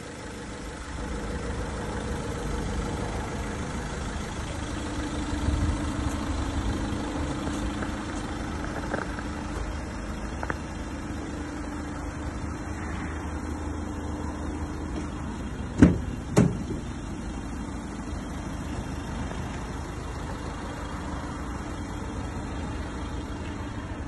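Van engine running steadily at idle, a low even rumble, with two sharp clunks about half a second apart roughly two-thirds of the way through.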